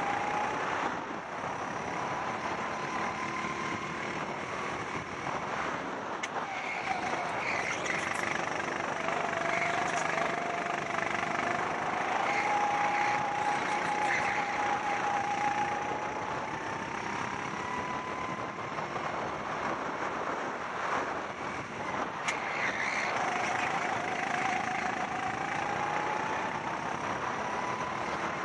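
Rental go-kart engine heard from the driver's helmet over about a lap: its note climbs steadily for several seconds at a time as the kart accelerates, then drops back as it slows for the corners, twice, before climbing again near the end.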